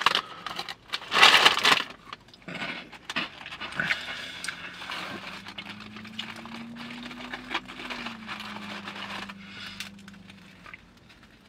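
Hot Cheetos chip bag crinkling loudly about a second in, then quieter crackling and rustling as handfuls of the chips are pulled out and pressed into a sandwich.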